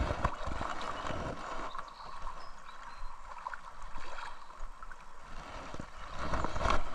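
Creek water gurgling and splashing, with scattered small knocks and clicks.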